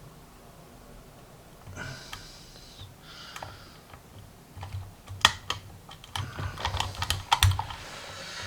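Lock pick and tension tool working in a Tecon 6-pin dimple lock cylinder: a few soft rustles, then from about halfway a rapid run of sharp metallic clicks and taps, loudest about five seconds in.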